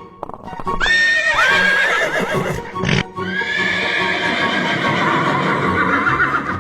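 Two long wavering animal calls over background music: the first rises and quavers about a second in, and the second follows a sharp click near the three-second mark.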